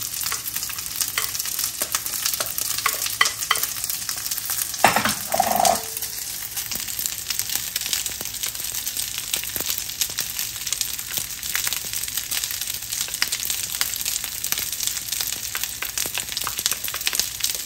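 Day-old cooked rice sizzling and crackling in a hot oiled non-stick frying pan, turned with a wooden spatula. A little before five seconds in, a single knock with a short ringing tone.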